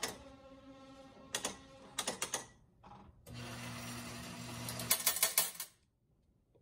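IGT Double Diamond Deluxe slot machine playing a spin: a click as play starts, a steady whir as the mechanical reels spin, then several sharp clunks as the reels stop one after another. A steady low hum and a short run of clicks follow near the end. The machine is working normally again after a RAM reset cleared its error codes.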